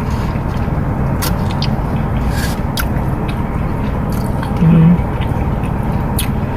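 A person chewing and biting into beef brisket, with small wet mouth clicks, and a short "mm" hum of approval near the end, over a steady low background rumble.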